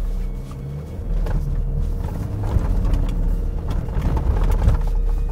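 Toyota Hilux's 2.8-litre turbodiesel engine running as the truck is driven over a rough off-road course, a steady low rumble with scattered knocks.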